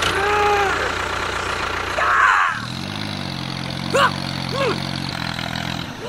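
Tractor engine idling steadily from about halfway through, its pitch settling just after it comes in, with two short high chirps over it. Before that there is a drawn-out voice-like call over a low hum, and a brief hiss.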